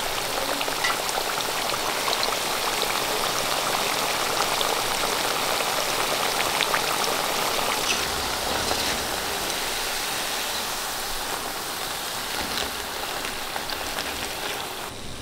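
Rava-coated breadfruit slices deep-frying in hot coconut oil: a steady sizzle with many small crackles.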